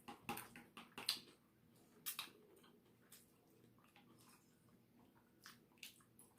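Faint, irregular wet chewing and lip smacks of a person eating, with louder smacks about one and two seconds in.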